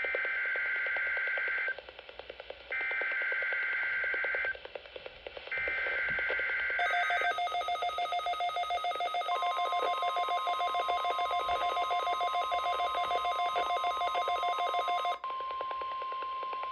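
Midland WR300 weather radio receiving an NWS Required Weekly Test: three buzzy bursts of SAME digital header tones, each under two seconds with short gaps. About 7 s in the radio's own rapidly pulsing electronic alert sounds, a steady warning-alarm tone joins about 9 s in, and the pulsing cuts off about 15 s in, leaving the steady tone.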